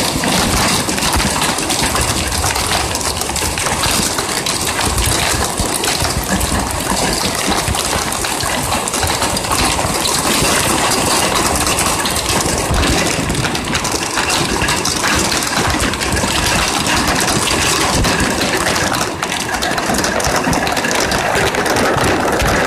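Heavy rain drumming on a window eave and straight onto the body of the recording phone: a loud, dense, unbroken patter of countless drop impacts.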